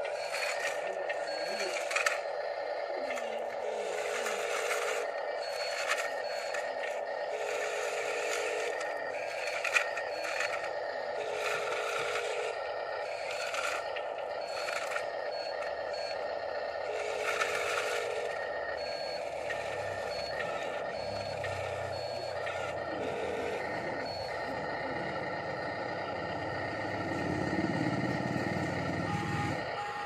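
Electric motors of radio-controlled Huina construction models whining steadily, with short beeps repeating every few seconds and gravel scraping and clattering. A lower rumble builds from about two-thirds of the way in.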